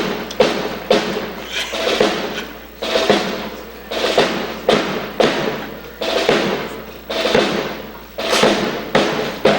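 Sharp knocks and slaps of a military rifle drill, about one a second, each ringing in a large hall.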